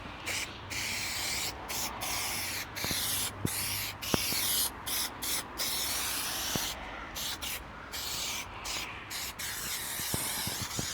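Aerosol can of spray adhesive hissing in a string of short bursts with brief breaks between them, as glue is sprayed for the carpet lining.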